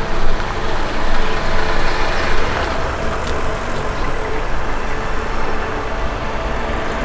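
Strong gusty windstorm buffeting the microphone: a continuous rushing roar with an uneven low rumble that rises and falls with the gusts.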